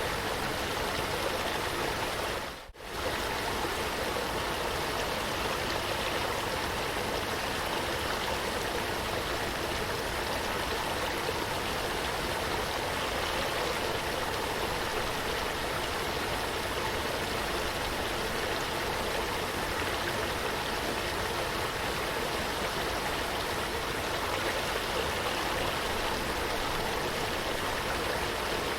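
Running water rushing steadily, with a brief dropout about three seconds in before it carries on unchanged.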